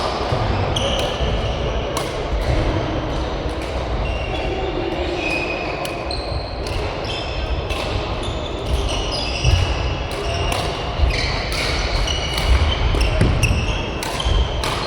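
Badminton rally sounds: sharp cracks of rackets hitting the shuttlecock and frequent short, high squeaks of shoes on the court floor, over a steady low hum.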